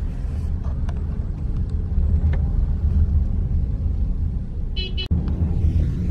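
Car driving: the steady low rumble of engine and road noise. A short high-pitched beep comes about five seconds in, followed at once by a sharp click.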